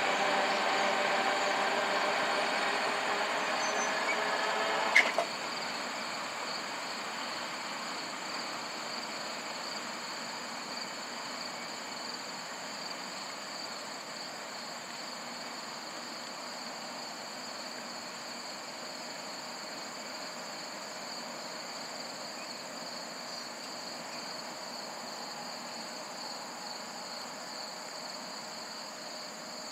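A coal train rolling away: the cars make a steady rolling noise with a ringing squeal of several tones over it. A sharp click about five seconds in cuts the squeal off, and a fainter rolling noise and steady insect chirping carry on after.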